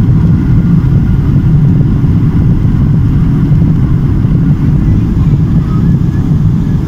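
Jet airliner's engines heard from inside the cabin over the wing during the climb: a loud, steady, low rumble.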